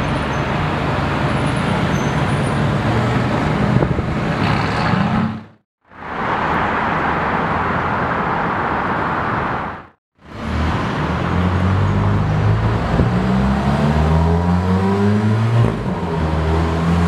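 Sports cars driving by on a city street, in three separate clips. First a Mercedes-AMG GT's twin-turbo V8 runs and rises in pitch as it pulls off. Then comes road and traffic noise, then an Alfa Romeo 4C's turbocharged four-cylinder accelerating hard, its pitch climbing.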